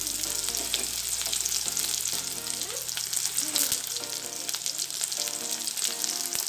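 Chopped onion sizzling in hot vegetable oil in an iron kadai, a steady hiss with many small crackles, just after the onion has gone into the heated oil.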